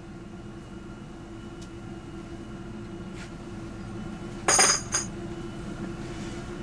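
A sharp metallic clink with a brief ringing, then a smaller click about half a second later, over a steady hum.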